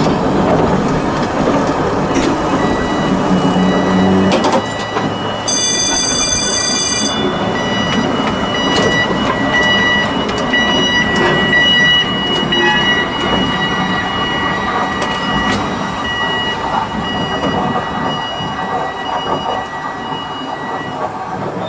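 Volk's Electric Railway car running along its track: a steady rumble of steel wheels on the rails, with a thin high whine throughout and a brief burst of high squealing about six seconds in. The running grows gradually quieter toward the end.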